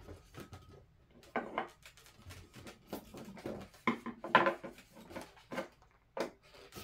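Latex 260 modelling balloons squeaking and rubbing against each other and against the hands as they are tied and twisted together, in irregular short squeaks and taps, loudest about four seconds in.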